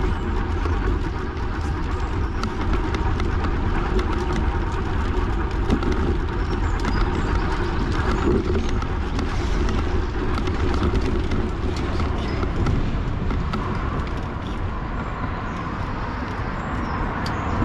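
Steady outdoor road noise with a low rumble of wind on the microphone, with no distinct single event.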